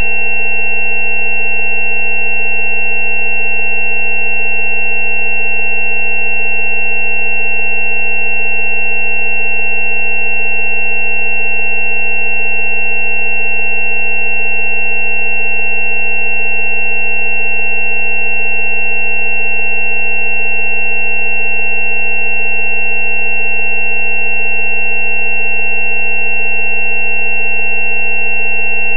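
Steady synthesized sine tones of a 190 Hz 'healing frequency' track. A low hum sits under several higher steady tones, the loudest a high whistle-like pitch, all holding constant with no change in pitch or level.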